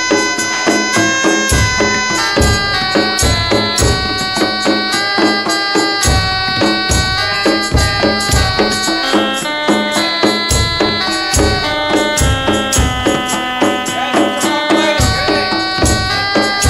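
Jaranan folk music: a melody in held, stepping notes over drums and steady rhythmic percussion.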